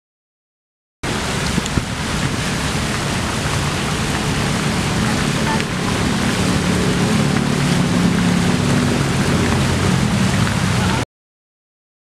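Fountain water splashing and rushing as a steady hiss, with a faint low hum beneath it. It starts abruptly about a second in and cuts off abruptly about a second before the end.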